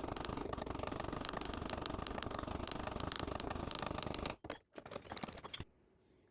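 Rapid, even tapping on the end of a brass pin as it is peened over and flared out. The tapping stops about four seconds in, and a few separate taps follow before it goes quiet.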